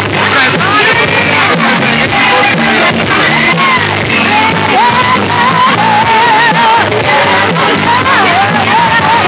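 Loud music with a singer over a steady bass line, mixed with people shouting and whooping along. The sung melody wavers up and down from about four seconds in.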